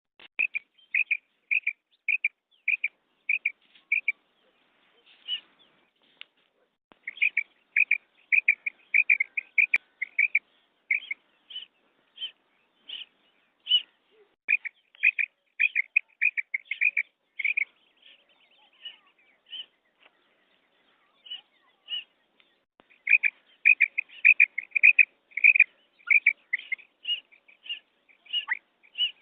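Female common quail calling: a long series of short, high, clipped notes, coming in quick runs separated by brief pauses.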